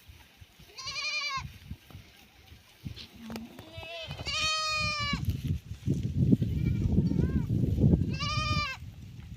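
Goats bleating: three loud, quavering bleats about a second in, in the middle and near the end, with a few fainter calls between. A low rumbling noise runs under the later part.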